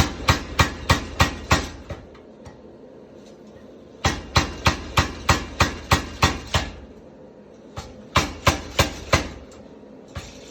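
Homemade power hammer built from scrap metal striking in three runs of rapid blows, about three a second, with short pauses between the runs.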